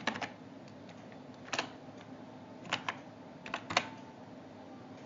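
Typing on a computer keyboard: about ten separate key clicks at an uneven pace, some in quick pairs and threes, entering a short word.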